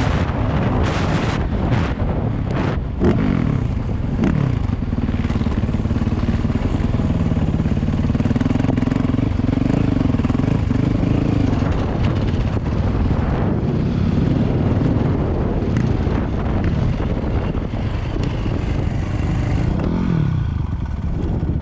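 Dirt bike engine running and revving, its pitch rising and falling repeatedly as it accelerates and backs off.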